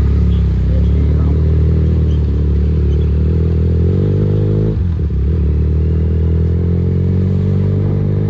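SRK 400 motorcycle exhaust running at a steady engine speed, with a short dip about five seconds in before the note picks up again.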